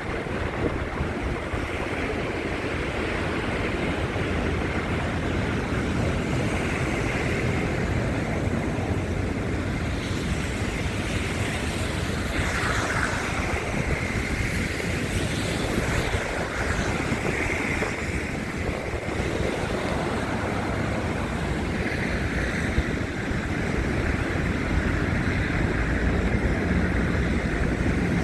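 Snowstorm wind buffeting a phone's microphone: a steady, rough rumble of noise with no letup.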